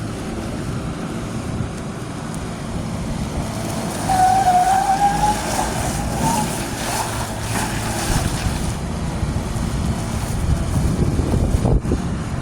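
Bobcat S750 skid steer's diesel engine running, turning louder about four seconds in, with a brief rising whine for a couple of seconds and a few knocks later.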